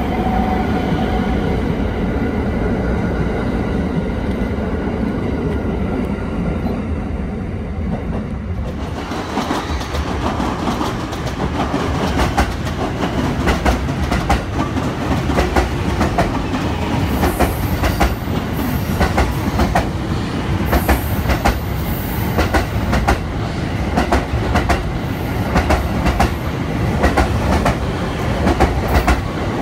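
JR 285 series Sunrise Express sleeper train running past, a steady rumble with a few faint tones. After a cut about nine seconds in, its wheels clack over the rail joints in a quick, uneven rhythm, with brief high-pitched wheel squeals in the second half.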